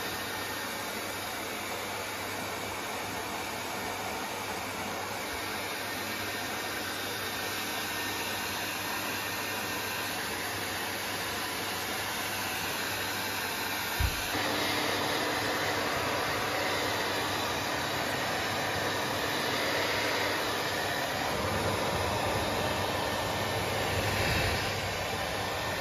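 Hair dryer blowing steadily on a wet dog's coat. A short sharp knock comes about halfway through, after which the blowing is a little louder.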